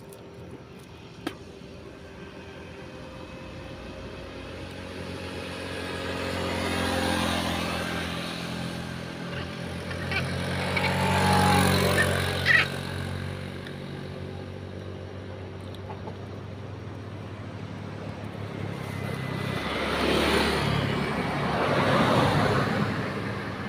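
Vehicles passing one after another on the road, each swelling up and fading away: one about seven seconds in, one around eleven to twelve seconds, and one or two near the end. A brief sharp sound cuts in about halfway through.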